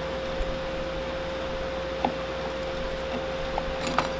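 Steady background hiss with a constant hum, and a few light metallic clicks from the Honda CA160's clutch parts being handled, most of them near the end.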